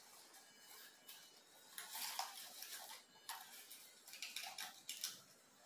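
Faint rustling and crackling of Nepenthes pitcher plant leaves and stems being handled, coming in short irregular clusters of light clicks.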